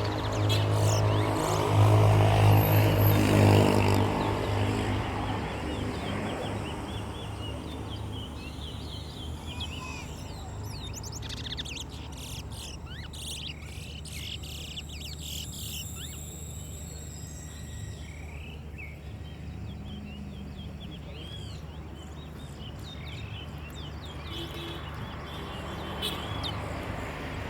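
Wild birds chirping and whistling in many short calls, busiest around the middle. A low droning hum is loudest in the first few seconds, then settles to a faint steady background.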